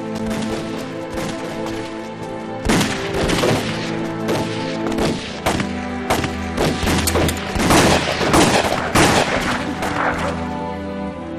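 A rapid volley of rifle gunfire, many shots in quick succession, starting about three seconds in and dying away near the end. Dramatic background music runs underneath throughout.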